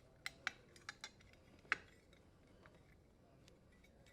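A few faint, sharp clicks and taps, about five in the first two seconds, the loudest near the end of the cluster: small plastic wire nuts and wires being handled while the dishwasher's power wires are disconnected at the terminal box.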